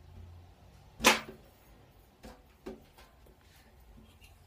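A sharp clack about a second in, then a few lighter knocks, as a snare drum is worked loose from the basket of its stand.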